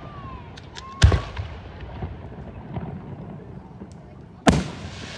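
Aerial firework shells bursting: two loud sharp bangs about three and a half seconds apart, with quieter pops and crackles between them.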